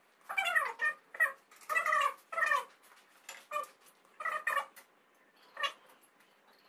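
A cat meowing over and over: about ten short, high calls, some falling in pitch, coming more sparsely toward the end.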